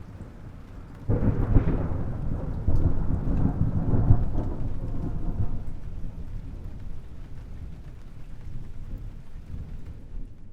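Thunder: a faint low rumble, then a sudden loud clap about a second in that rolls on in deep rumbles for several seconds and slowly fades.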